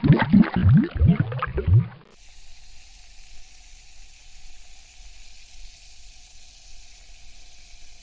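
Water bubbling and gurgling in quick, rising bloops. About two seconds in it switches abruptly to a steady, soft fizzing hiss with a faint hum under it.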